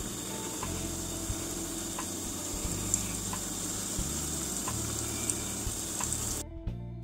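Kefir-dough doughnut rings frying in deep hot oil in a pan: a steady sizzle with a few faint ticks as more rings go in. Near the end the sizzle cuts off suddenly and background music takes over.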